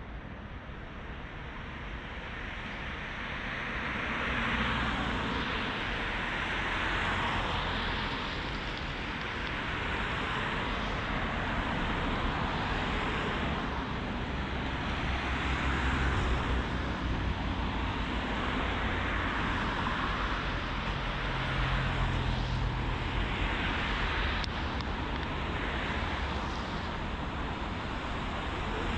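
Road traffic going by: a continuous wash of tyre and engine noise that swells and fades as vehicles pass, building up over the first few seconds.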